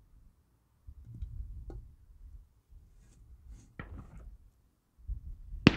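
Split firewood shifted by hand on cinder blocks over a small fire: a few light wooden knocks, then a sharp knock near the end, over a low gusty rumble of wind on the microphone.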